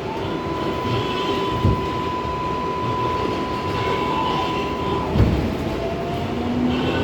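R188 subway train under way, its propulsion giving a steady electric whine for about five seconds over the rumble of the wheels, with a couple of knocks. Near the end the whine gives way to tones rising slowly in pitch as the train picks up speed.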